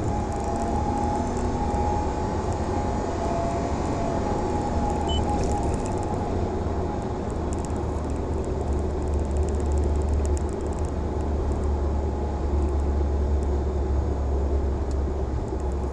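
Toyota iQ accelerating, with a steady low drone and the abnormal engine-bay noise that appears once the engine is fully warm; a dealer has confirmed it as a fault needing parts replaced. Light clicking over the top, mostly in the first two-thirds, is a phone strap rattling.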